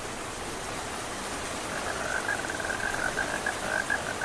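Rain falling as a steady, even hiss that slowly grows louder. From about two seconds in it is joined by a rapid, evenly pulsing trill at one steady pitch, the call of a frog or insect.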